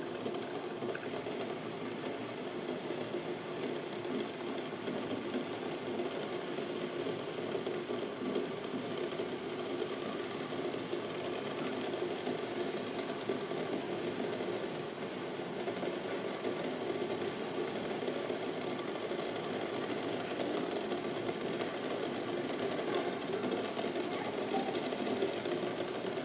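Eggs rattling against the bottom of a stainless steel pot and against each other in boiling water, a steady, continuous clatter over the bubbling.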